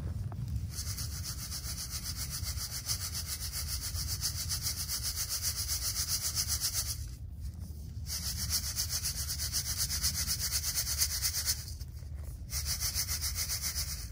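Wheat grain and soil being shaken back and forth in a hand sieve (chhalni), a rapid rhythmic scraping rasp as the soil is sifted out of the gathered wheat. The shaking stops briefly twice, once about halfway through and again near the end.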